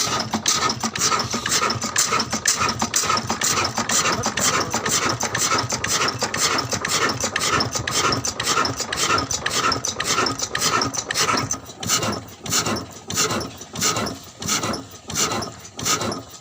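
Old engine running with a rhythmic chugging beat. About twelve seconds in, the beat slows and spreads out into separate, widely spaced strokes, as though the engine were losing speed.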